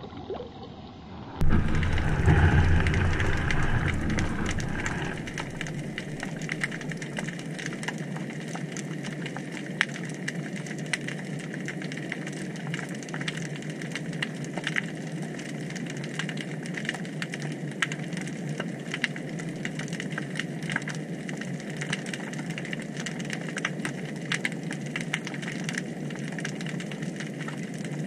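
Underwater ambience: a steady hiss of water noise thick with tiny crackling clicks. A louder rush of water noise starts suddenly about a second and a half in and fades over the next few seconds.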